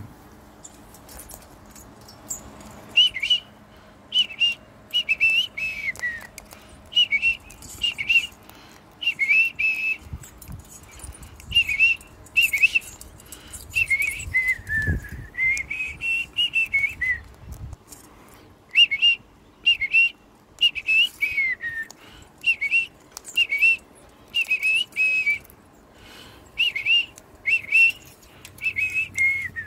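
Person whistling a long series of short, high notes, about one or two a second, with a couple of longer falling-then-rising glides, calling sulphur-crested cockatoos in to feed.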